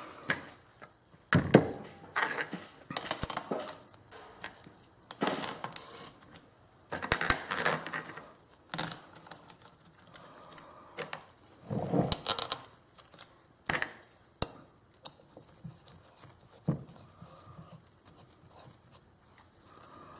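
Irregular metal clinks, scrapes and knocks as steel socket-head bolts are picked up off a plastic tray and threaded by hand and with an Allen key into the back of a Hardinge Sjogren collet chuck, which shifts on the tray as it is handled.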